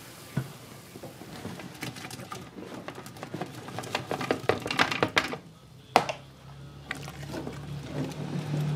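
Fried gulab jamun balls tipped from a plastic bowl into an aluminium pot of sugar syrup: a quick clatter of knocks against the metal and splashing in the syrup, then one sharp knock about six seconds in. A low steady hum sets in after it.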